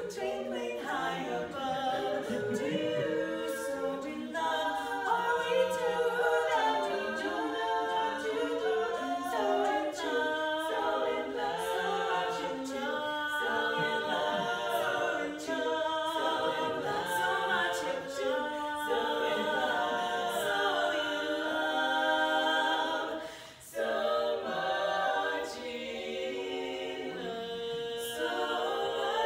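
Women's barbershop quartet singing a cappella in close four-part harmony, with one brief break about two-thirds through.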